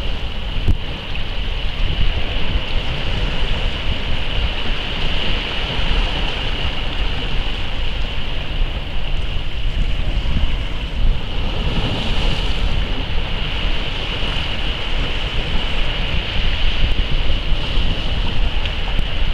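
Small waves washing in and splashing against the boulders of a rock jetty, a steady surf hiss with wind rumbling on the microphone. One splash comes through brighter about twelve seconds in.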